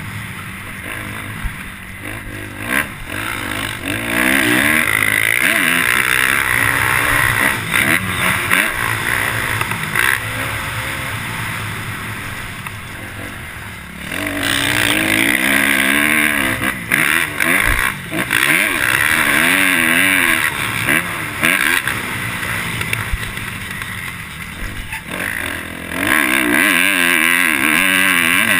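Motocross bike engine heard from the rider's helmet, revving hard with its pitch climbing and falling as it runs through the gears. It backs off into quieter stretches twice, about a third and about halfway in, then pulls hard again near the end.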